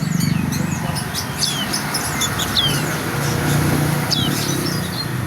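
A bird calling with short, sharp chirps that slide quickly down in pitch, repeated every second or so among other thin high notes, over a steady low rumble.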